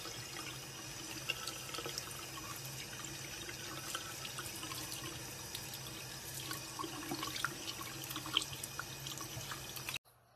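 Water running and splashing in a sink as a Yorkshire terrier puppy is rinsed by hand, with small splashes and drips throughout. It cuts off suddenly near the end.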